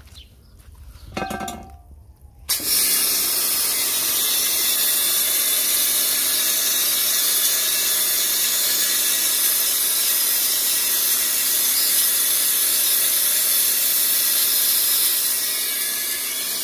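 Kärcher Full Control pressure washer spraying through a wet sandblasting attachment at an alloy wheel: a loud, steady hiss of the water jet that starts suddenly about two and a half seconds in, with a steady low hum beneath. The attachment draws no sand, so the jet is water only.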